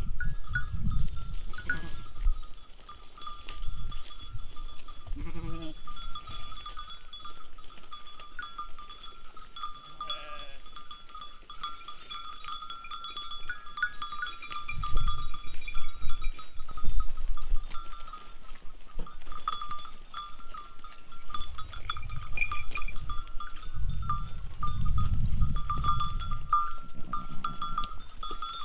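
Sheep and goat bells clinking and ringing continuously as the herd grazes and moves, with a sheep or goat bleating briefly about five seconds in and again around ten seconds in.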